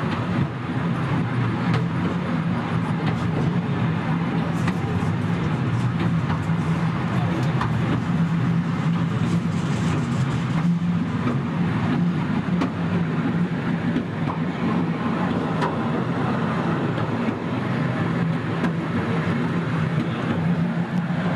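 Katoomba Scenic Railway carriage, a cable-hauled incline railway, running steadily as heard from inside the carriage: a constant low rumbling drone.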